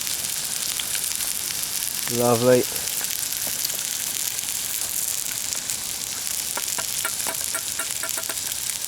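Burgers frying in a pan, a steady sizzle.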